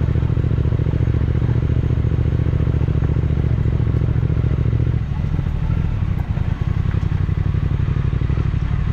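Triumph Speed Twin 1200's parallel-twin engine running under throttle; about five seconds in the note drops and softens as the throttle eases, picking up again near the end.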